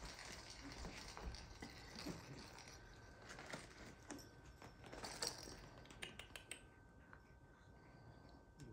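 Faint rustling and scattered light taps and clicks from a cat scuffling with small catnip toys on a hardwood floor and from a plastic-wrapped toy pack being handled. The sounds thin out about two-thirds of the way through.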